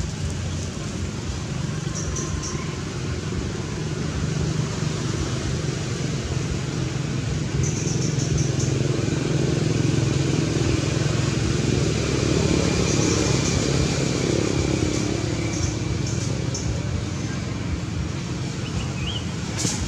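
Low rumble of engine and road traffic noise, growing louder through the middle and easing off toward the end.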